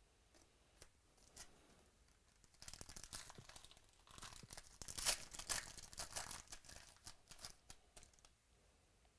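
Plastic wrapper of a trading-card pack being torn open and crinkled, a run of crackly rustling lasting about six seconds that starts a few seconds in.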